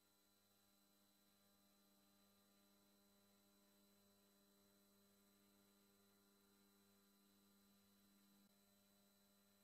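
Near silence: only a faint, steady electrical hum. The truck's crash into the barrier is not heard.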